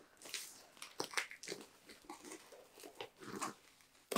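Cardboard box and plastic-wrapped packing tape being torn and pried open by hand: a run of irregular crackles and short rips.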